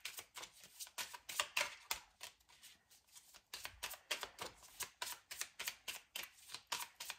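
Deck of oracle cards being shuffled by hand: a quick, irregular run of soft card slaps and flicks, several a second, thinning briefly about two to three seconds in.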